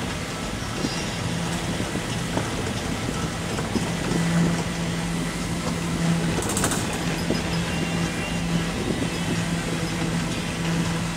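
A moving vehicle: a steady engine hum over road and wind noise, with a few light knocks and a short high hiss about six and a half seconds in.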